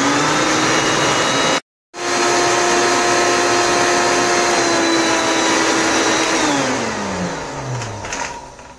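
A 500-watt Walita countertop blender's motor running at full speed, pulping chopped parsley with no water added. The sound cuts out completely for a moment about a second and a half in. Near the end the blender is switched off and the motor winds down, falling in pitch over about a second and a half.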